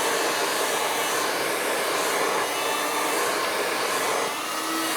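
Handheld hair dryer running steadily, its fan drawing air through a newly 3D-printed PETG inlet screen with no audible loss of airflow. The level eases slightly about four seconds in.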